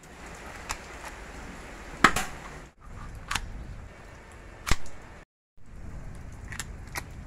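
Sharp plastic clicks and snaps from handling a toy BB pistol and its magazine, about six in all, with the loudest two about two seconds in and near the middle.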